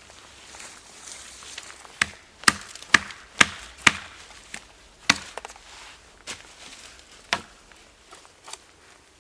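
Wood being chopped: sharp blows into wood, five in quick succession about two a second, then two more spaced out.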